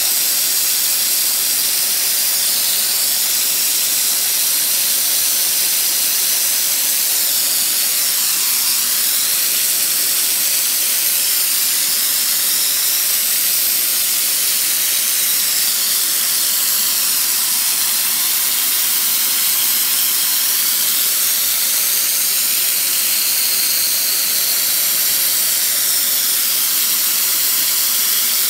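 Belt grinder running with a knife blade held against its contact wheel for a hollow grind, under a steady hiss from the mist coolant spray aimed at the belt. A faint steady hum from the machine sits beneath the hiss.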